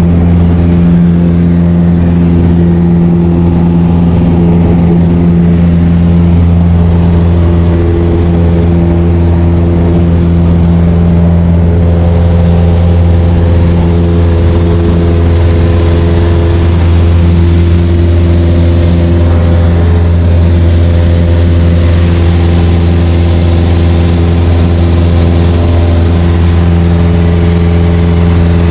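Light aircraft's piston engine and propeller running at a steady, loud drone, with no change in pitch.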